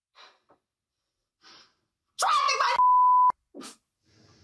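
Soft breaths, then about two seconds in a woman's loud outburst runs straight into a half-second steady censor bleep that cuts off abruptly, followed by a brief vocal sound.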